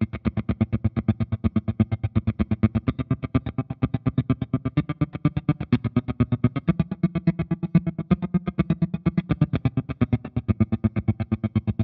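Electric guitar, a Gretsch 6120, played through a Marshall amp with a Catalinbread Valcoder tremolo pedal. The tremolo chops the sound into rapid, even, choppy pulses of about seven a second. The chord changes about halfway through.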